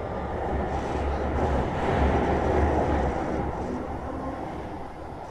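Kyoto Municipal Subway 20 series train heard from inside the car while running in the tunnel: a low rumble with wheel-on-rail noise that swells to a peak in the middle and eases off again.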